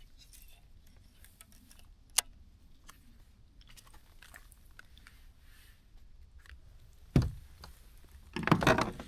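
Close handling noises: a sharp click about two seconds in, a thump about seven seconds in, then a short crunching rustle near the end.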